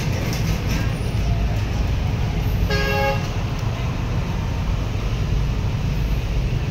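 Steady low rumble of heavy vehicle engines, with one short vehicle horn toot lasting about half a second, about three seconds in.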